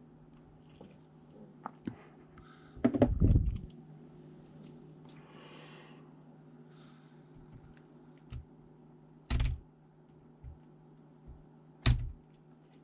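A ThinkPad T400 laptop being handled during disassembly for a CPU upgrade: scattered light plastic clicks and three dull thumps, the heaviest about three seconds in and two more near the end.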